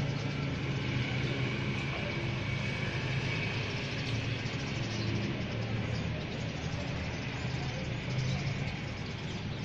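A motor vehicle's engine running steadily nearby, heard as a continuous low hum, with faint background bird chirping.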